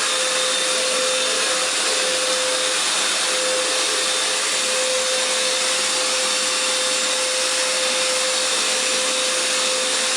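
Hoover FloorMate wet floor cleaner running steadily. Its motor gives a continuous rushing whine with one steady pitched tone through it.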